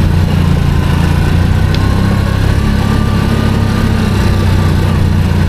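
ATV (quad bike) engine running steadily as the quad rides along a forest track.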